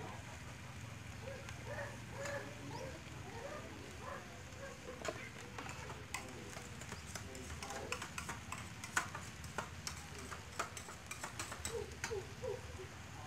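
Scattered crackles and pops from a large pot of curry cooking over a wood fire, becoming more frequent after about five seconds, with faint voices in the background.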